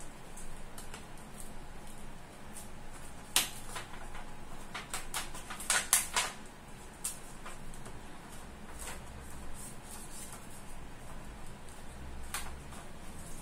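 Small plastic clicks and taps from hands fitting and connecting a solid-state drive inside the open plastic chassis of a Lenovo IdeaCentre C260 all-in-one computer. A sharp click comes about three seconds in, a quick cluster of clicks around six seconds in, and another click near the end.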